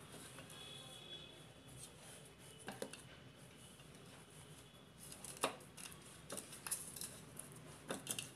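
A hand rubbing turmeric and salt into quartered eggplant pieces in a metal bowl: faint handling and rubbing, with a few light clicks and knocks of the pieces against the bowl.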